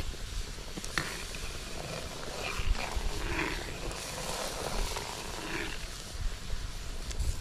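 Coconut-milk and burnt-sugar syrup boiling and bubbling in a large steel wok, with a metal ladle stirring and knocking sharply against the pan a couple of times, over a low rumble.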